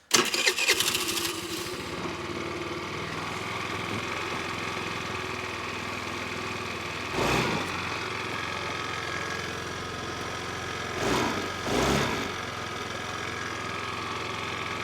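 Small 50cc scooter engine starting at once and then running steadily at idle, with three short revs, one about halfway and two close together later. It keeps running now that its broken vacuum line is plugged, the leak having kept it from starting.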